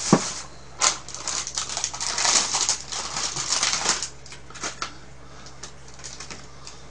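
Dishes and food containers being handled on a table: a sharp knock, another about a second in, then clinking and rustling for about three seconds, thinning out to a few faint clicks.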